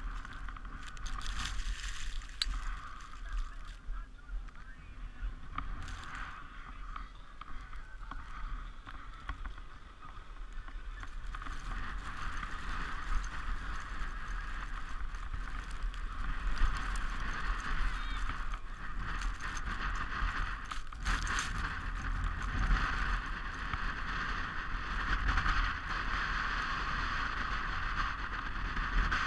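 Sled runners sliding over a packed-snow toboggan run: a steady hiss over a low rumble, with a few sharp knocks, growing louder after about ten seconds as the sled picks up speed.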